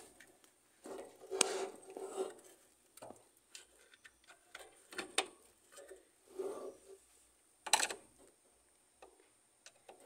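Phillips screwdriver driving the mounting screws of a new washing-machine drain pump, with hands handling the pump: scattered small clicks and scrapes, the sharpest about 1.5, 5 and 8 seconds in.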